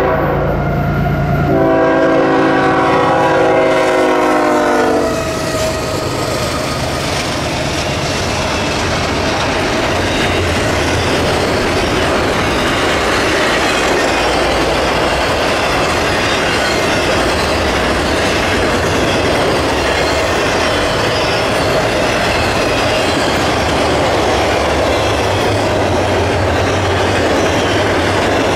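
CSX double-stack intermodal freight train passing. The locomotive's horn sounds a short blast, then a longer one that ends about five seconds in. After that comes the steady rumble and clickety-clack of the loaded cars rolling by.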